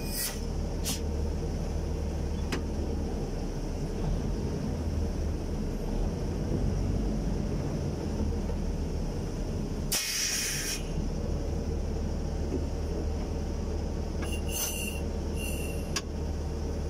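Heavy diesel engine of a crane running steadily while it holds a lattice boom section on the hook. A brief hiss comes about ten seconds in, and a few sharp clicks near the end.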